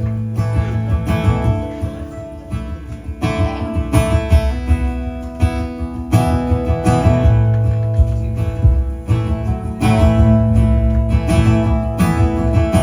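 Acoustic guitar strumming and picking a slow, steady instrumental introduction, with no singing yet.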